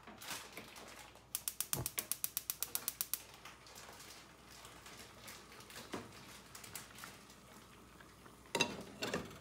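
Gas stove igniter clicking rapidly, about ten clicks a second for two seconds. Near the end a glass pot lid is set on a small saucepan with two clinks.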